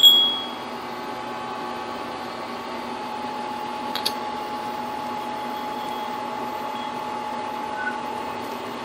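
Steady hum holding a few fixed tones, with a sharp click at the start and another about four seconds in as a taper roller bearing inner race is handled and slid onto a steel lathe spindle.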